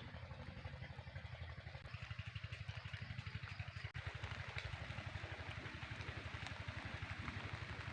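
Steady rain falling, with fine drop clicks over a soft hiss. Under it runs a fast, even, low pulsing, about ten beats a second, like a small engine idling.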